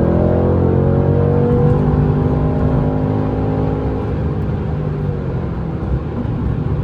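Mercedes-AMG C63 S engine pulling under throttle, its pitch climbing slowly for about the first two seconds, then easing off and falling gently as the car cruises.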